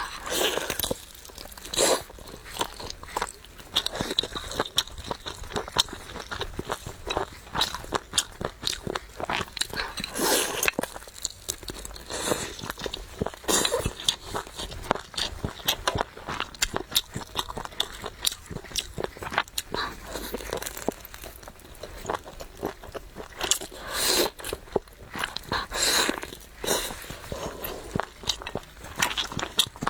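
A person eating, biting and chewing food, with a dense, irregular run of small clicks throughout.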